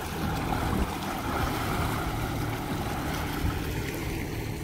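Small boat under way on a calm sea: water rushing and splashing along the hull and wake, over a steady low hum.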